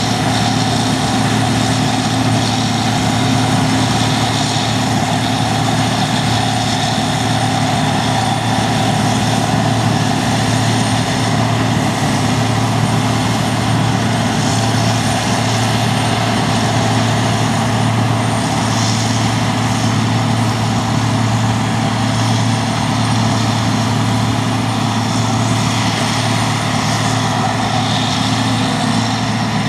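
John Deere 2264 combine harvester running steadily while cutting barley: a constant engine and machinery drone with a steady low hum.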